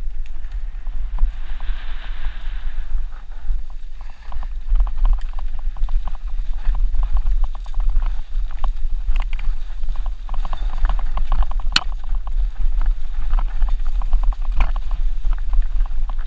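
Mountain bike descending a rough, stony dirt trail: a continuous rapid clatter and rattle of the bike jolting over rocks and loose gravel, with one sharp crack about twelve seconds in. Heavy wind rumble on the microphone underneath.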